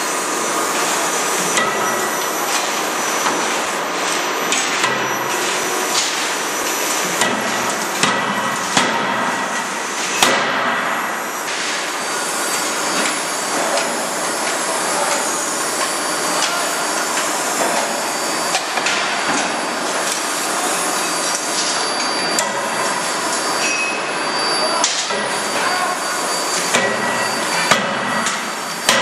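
CNC hydraulic die forging hammer striking red-hot steel in closed dies to forge connecting rods: sharp, heavy blows at irregular intervals, about one every second or two, over a constant loud machine noise.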